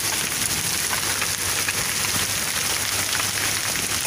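Heavy rain falling on wet pavement and puddles: a dense, steady patter of many small drops hitting the ground.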